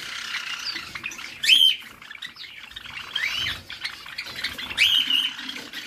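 A flock of Java sparrows chirping, with louder, sharper calls about one and a half, three and five seconds in, as the birds squabble while pairing up.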